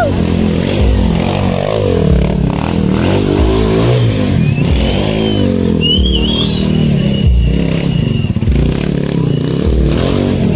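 Stunt motorcycle engine revving up and down over and over as the rider holds wheelies and turns tight circles. A few brief high squeals come about halfway through.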